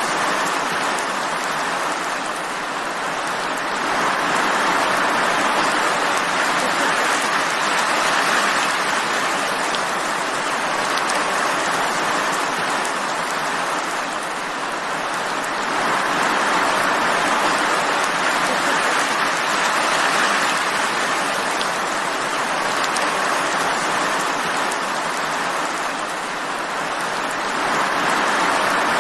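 Steady rain falling as an even hiss with no thunder, swelling slightly and easing back about every twelve seconds.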